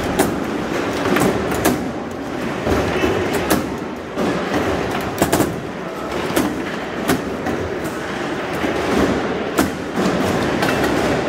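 Foosball rally: irregular sharp clacks of the hard ball striking the plastic players and table walls and the steel rods knocking, over a steady background din of a busy hall with many tables in play.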